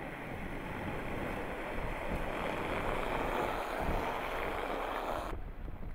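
Jeep Renegade driving past through packed snow: a rushing mix of tyre and engine noise that grows louder as it nears, then cuts off sharply about five seconds in, leaving low wind rumble on the microphone.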